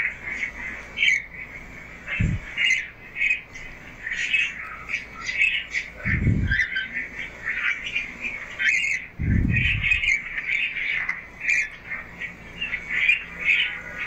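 Many small birds in a coop chirping and peeping in short, quick calls, with three low dull thumps about two, six and nine seconds in.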